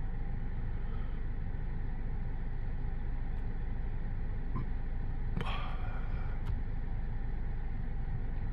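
Steady low rumble heard inside a car cabin, with a few faint clicks about halfway through.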